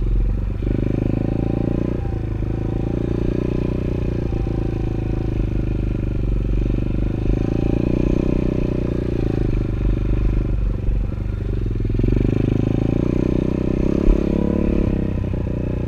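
Small 110cc four-stroke pit bike engine running under way, its note rising and falling as the throttle is worked on and off. One sharp knock near the end.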